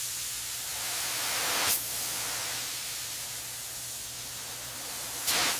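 Steady hiss of a pressurised foam spray, with two brief louder spurts, one about two seconds in and one near the end, over a faint low hum.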